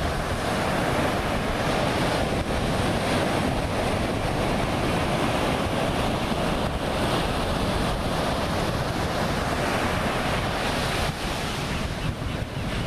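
Ocean surf breaking and washing in, a steady wash of noise, with wind rumbling on the microphone.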